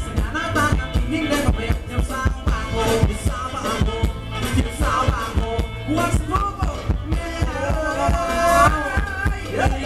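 Live band playing Thai ramwong dance music: a singer's voice over a steady drum beat.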